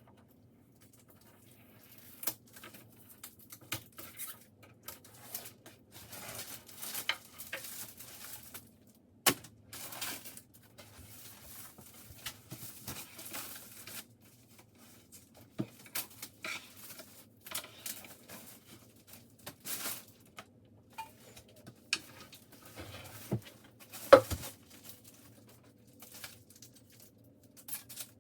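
Flat-pack furniture parts being handled: scattered small knocks and clinks of panels and metal hardware, with rustling and tearing of packaging. The loudest knock comes late on.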